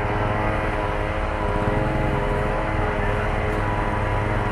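Fire truck's engine running at a steady speed, a constant drone with a low rumble.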